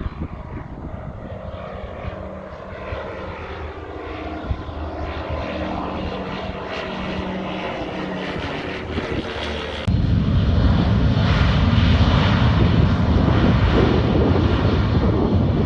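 Airplane engines: a propeller plane's engine hum growing gradually louder. About ten seconds in, an abrupt cut brings a much louder, steady rushing aircraft engine noise.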